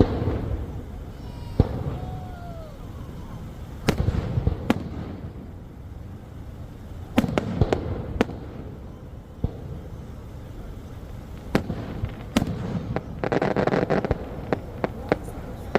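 Fireworks going off: a dozen or so sharp bangs at uneven intervals, some in quick pairs, with a burst of dense crackling about three quarters of the way through.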